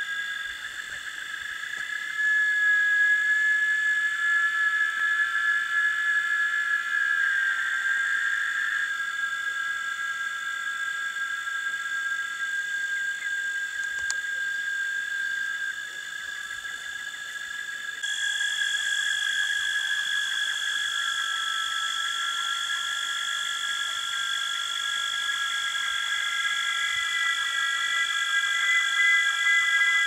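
Cicadas singing: several steady high-pitched tones at different pitches overlap, some dropping out and others joining, with a sudden shift in the chorus about two-thirds of the way through.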